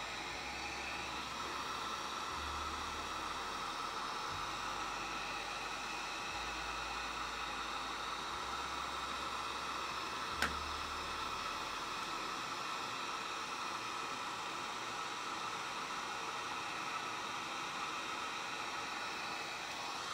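Handheld Wagner heat gun blowing hot air with a steady hiss, aimed at the edge of a wooden cutting board to scorch the wood-burning gel and darken the edges. A single short click comes about halfway through.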